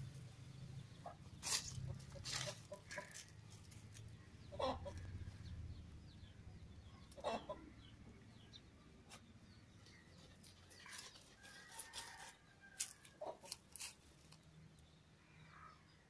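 A dog scratching in dry, stony dirt and crunching on a lizard it has caught, heard as scattered sharp scrapes and cracks. Chickens cluck now and then in the background.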